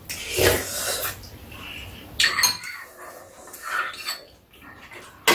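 Metal spoons and chopsticks clinking and scraping against ceramic bowls during a meal, with a cluster of sharp clicks about two seconds in, along with eating sounds.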